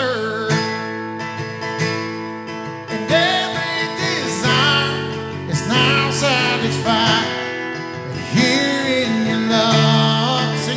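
Live worship band song: a man singing lead over strummed acoustic guitar and electric bass.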